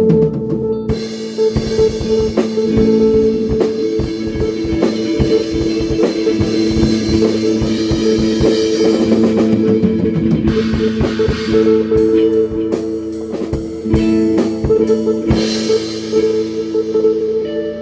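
A band playing an instrumental jam: a drum kit with steady hits and cymbal wash under held, sustained chords.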